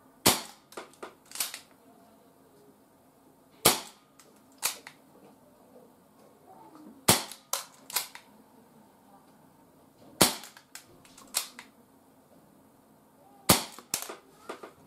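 ASG Dan Wesson CO2 airsoft revolver firing five single shots about three seconds apart. Each shot is a sharp crack followed within a second by a few fainter clicks.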